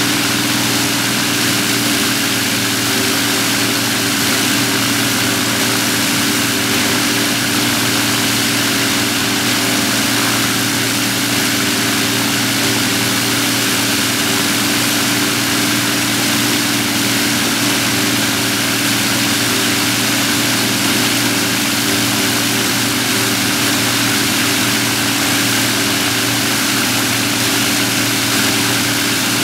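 Avro Lancaster NX611's four Rolls-Royce Merlin V12 piston engines running together on the ground, propellers turning, with a loud, even, unchanging engine note.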